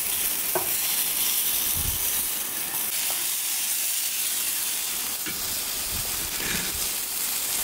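Walleye pieces frying, a steady sizzle with a few faint ticks.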